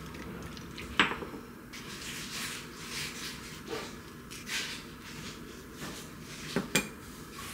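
Small kitchen items being handled on a countertop: a sharp click about a second in, soft handling noises, then two quick knocks close together near the end.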